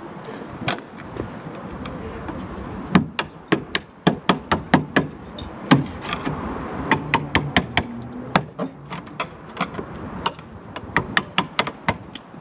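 Rusted steel wheel arch of a Triumph Dolomite being poked and prodded: an irregular string of sharp taps, clicks and knocks of metal on rotten, corroded sheet steel.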